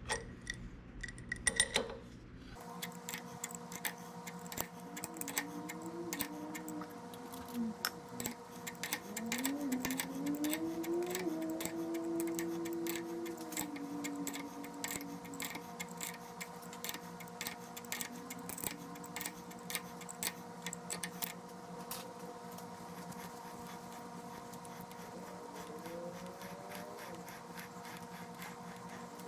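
Round die being turned by hand in a die stock to clean up a thread: a dense run of fast clicks and ticks, sped up after the first couple of seconds. Under it are a faint steady hum and some faint wavering tones.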